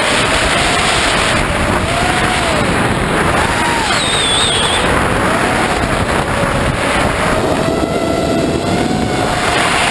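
FPV drone's electric motors and propellers whining, the pitch rising and falling as the throttle changes, with wind rushing over the onboard camera's microphone.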